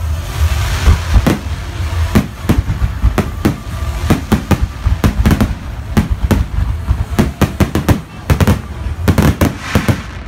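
Professional fireworks display barrage: aerial shells bursting in rapid succession, a dense run of sharp bangs several a second, over a hiss of rising comets.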